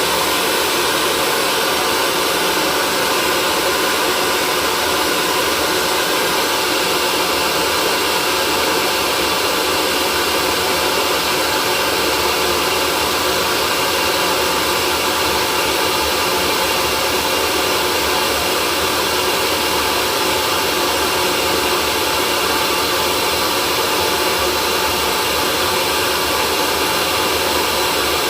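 Hair dryer running steadily: a constant rush of air noise with a few faint steady tones, unchanging in level or pitch.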